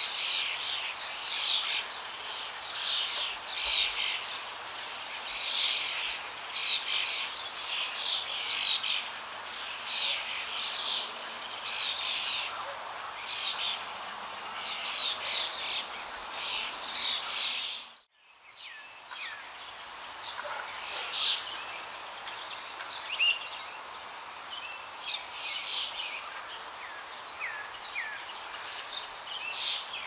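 Many small birds chirping and singing over a steady background hiss. About two-thirds of the way through, the sound fades out briefly and comes back with fewer, sparser calls.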